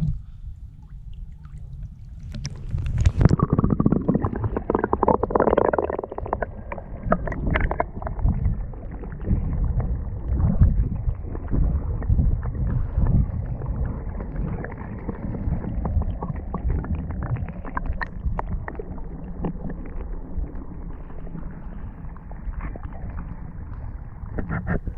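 A splash as the camera plunges under the surface about three seconds in, then muffled underwater water noise: low churning, rumbling and gurgling of spring water against the camera.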